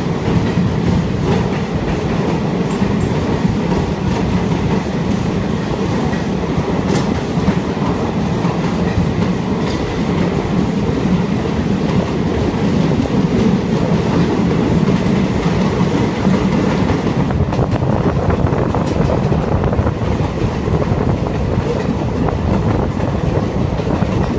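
Express passenger train running at speed through a tunnel, heard from aboard: a steady, loud running noise of wheels on rails, carried on without a break.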